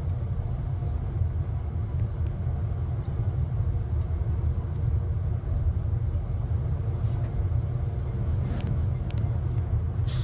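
Steady low rumble of a moving train, with a deep hum and a few faint clicks.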